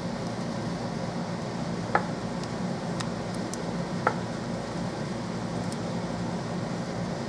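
Steady mechanical hum with two light clicks, about two and four seconds in.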